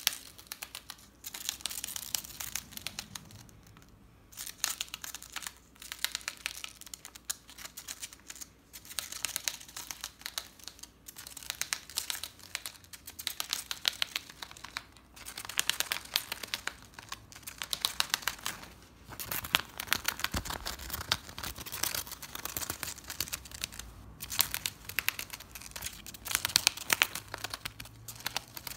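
A gerbil gnawing along the edge of a paper envelope, its teeth tearing the paper in quick rasping nibbles. The nibbling comes in bouts of a few seconds with short pauses between them.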